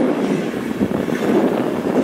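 Passenger train rolling along the track, a steady rumble of wheels on rails.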